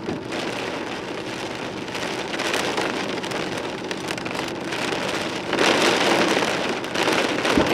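Torrential rain pounding on a car in a thunderstorm's gust front, with wind gusts. The downpour surges louder about two-thirds of the way through.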